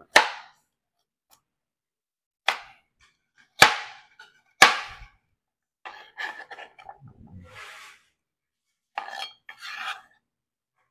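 Chef's knife chopping raw carrot on a cutting board: four sharp knocks of the blade hitting the board in the first five seconds, then softer scraping and rubbing as the pieces are moved across the board.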